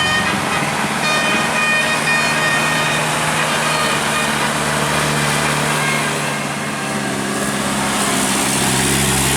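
A bus's 'telolet basuri' musical air horn playing a short run of notes over the first two seconds or so, then fading out, while the bus engine drones steadily throughout.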